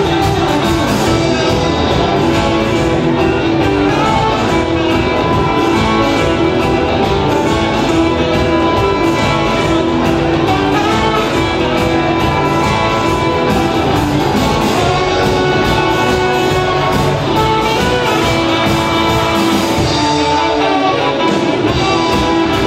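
Live band playing loudly: saxophone over electric guitars, bass, keyboards and drums. The bottom end drops away briefly near the end.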